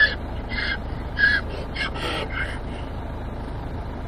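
Donkey braying: a run of about seven short calls in quick succession, stopping a little under three seconds in.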